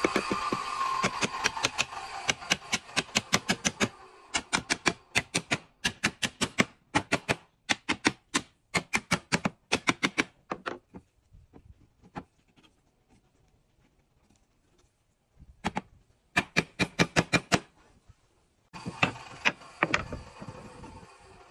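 Rapid light hammer taps on a wooden cabinet door frame, several a second in long runs: driving the stile onto the panel to seat the joint. The tapping stops about eleven seconds in and comes back in two short runs near the end.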